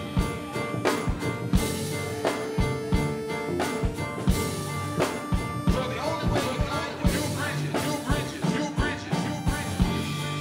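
Live band of drum kit, electric bass and keyboards playing an instrumental piece, with a steady drum beat under sustained keyboard and bass tones.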